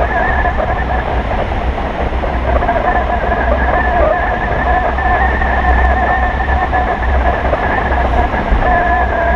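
Wind rushing over a camera mounted on a hang glider in flight: a steady low buffeting rumble with two even, steady whistling tones over it.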